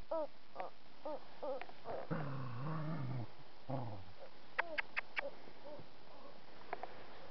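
Corgi puppies whining and yipping in play: a string of short high calls, a longer lower-pitched call about two seconds in, and a quick run of four sharp yelps about five seconds in.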